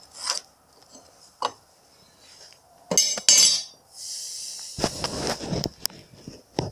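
Handling noise at a workbench: light metallic clinks and knocks as a metal plate and a pencil are handled on a wooden board. A cluster of clinks comes about three seconds in, followed by a couple of seconds of rustling, and there is a sharper knock near the end.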